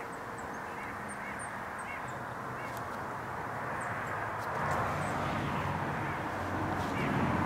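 Open-air ambience: a steady rush of noise with faint, repeated short bird calls over the first few seconds, and a low engine rumble that grows louder in the second half.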